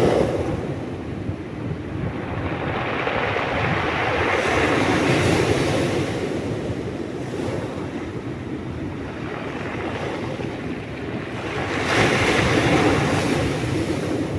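Sea waves washing in and drawing back, the noise swelling in slow surges, loudest about five seconds in and again near twelve seconds, with low wind rumble on the microphone.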